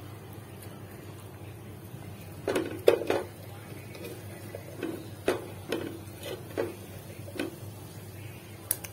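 Irregular light knocks and clinks against an aluminium pressure cooker pot, about a dozen of them. The loudest come in a quick cluster about two and a half seconds in, and the rest are scattered after it.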